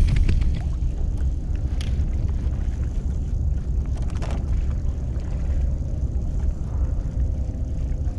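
Strong wind buffeting the camera microphone, a steady deep rumble, over choppy water sloshing around a kayak. A couple of faint knocks come through about 2 and 4 seconds in.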